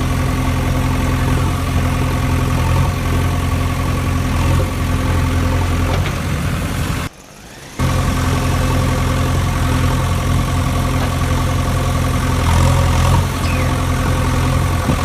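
An engine idling steadily. It cuts out suddenly for just under a second about seven seconds in, then resumes.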